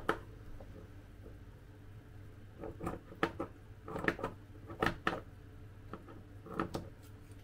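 Scattered light clicks and rustles of craft materials being handled: card templates and wool for a gonk craft kit, with a few quick clusters of taps.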